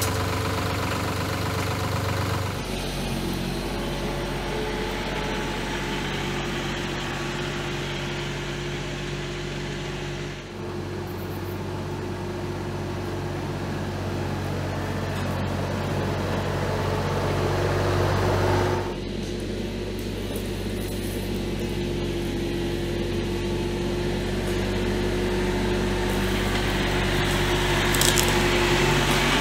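Bad Boy 4035h compact tractor's diesel engine running steadily, driving a PTO-powered Woodland Mills WG24 stump grinder. The engine tone shifts abruptly three times, about 3, 10 and 19 seconds in.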